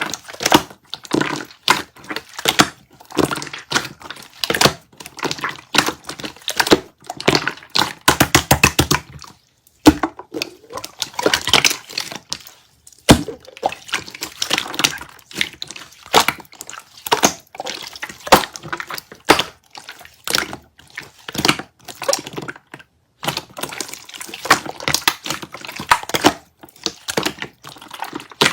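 Hands squishing, pressing and stretching light-green clear slime, making a steady stream of wet clicks and crackling pops, with a quick rapid-fire run of clicks about eight seconds in.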